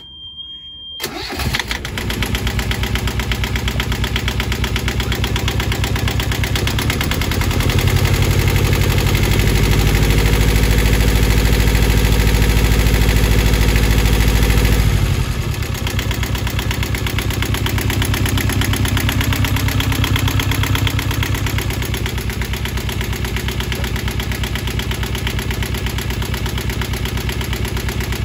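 A yacht's small inboard diesel engine starts about a second in and settles to a steady run. It is revved up from about seven seconds in, held there for several seconds, then dropped back to idle. A high steady beep tone sounds briefly before it catches.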